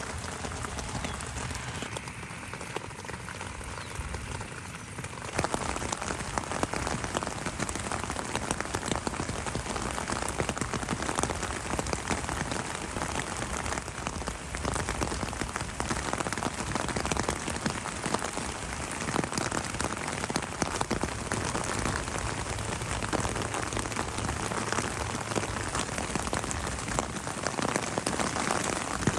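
Steady spring rain falling and pattering on surfaces, which grows louder and denser about five seconds in.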